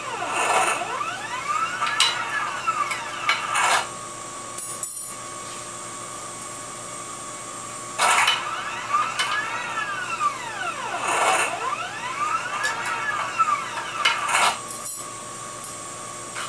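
CNC wire bender's drive motor cycling through piano-wire bends, its whine sweeping up and then back down in pitch again and again. It pauses on a steady hum for a few seconds between two runs of sweeps. Sharp metal clicks come from the wire and fixture a few times.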